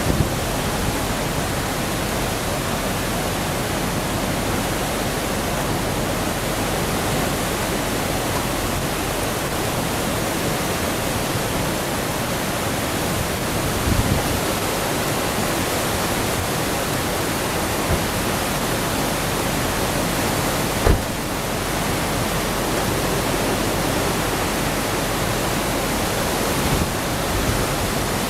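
Steady, loud rushing of a typhoon-swollen river in flood, with a few faint knocks now and then.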